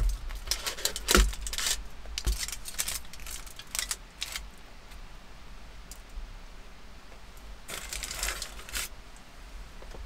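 Knife cutting through toasted sandwich bread on aluminium foil, a run of crisp crunches and crackles over the first few seconds. About eight seconds in, a short crinkle of foil as the sandwich halves are handled.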